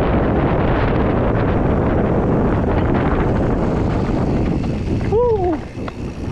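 Wind buffeting the microphone of a moving mountain bike's camera, a heavy steady rush. A little after five seconds a brief falling squeal sounds, and then the rush drops off.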